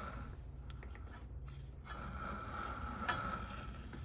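A Landis leather splitter running a test strip of leather past its freshly sharpened blade, with faint mechanical clicking and scraping over a steady low hum. At this point the blade is not cutting right through.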